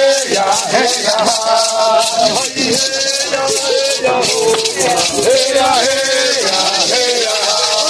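Maracas shaken in a steady rhythm under voices singing a ritual chant, the held notes sliding up and down.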